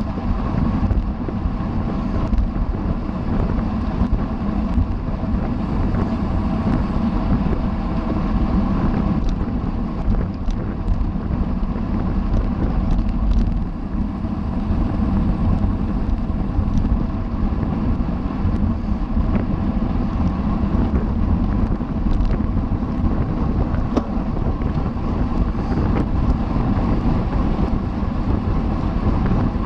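Wind rushing over the microphone of a camera on a racing bicycle at speed, a steady loud buffeting with a faint hum beneath and a few faint clicks.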